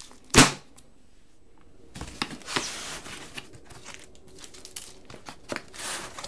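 A sharp knock about half a second in, then paper and cardboard rustling and crinkling as hands handle a cardboard comic book box.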